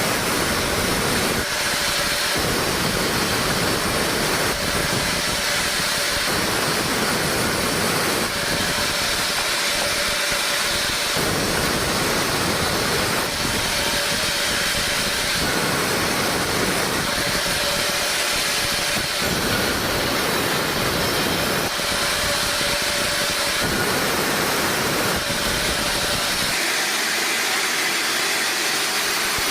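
Sawmill saw running as short logs are cut: a steady, loud machine noise whose character changes every two to three seconds, with a faint steady tone coming and going in step.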